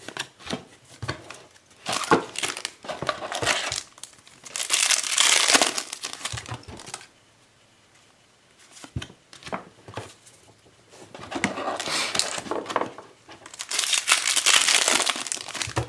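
Foil trading-card booster pack wrappers crinkling and tearing open, in several crackling spells of a few seconds each, with the light clicks of cards being handled in between.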